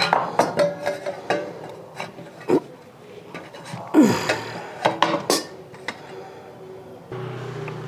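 Stainless steel plate and steel tin clinking, knocking and scraping against each other as the tin of set agar jelly is turned out onto the plate, with several sharp taps and a brief falling metallic ring about four seconds in.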